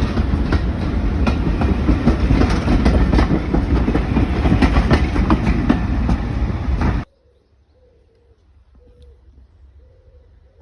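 Heritage railway train running, its wheels clicking over the rail joints; the noise cuts off abruptly about seven seconds in, leaving quiet with a pigeon cooing repeatedly.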